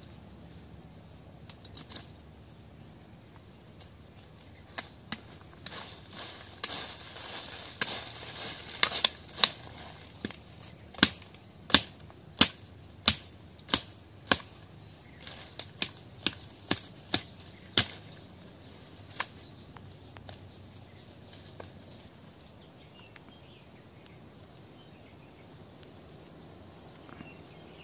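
Twigs snapping and dry leaves rustling close by as a rabbit snare is set by hand in forest scrub. An irregular run of sharp snaps and clicks, several a second at times, dies away about two-thirds of the way through.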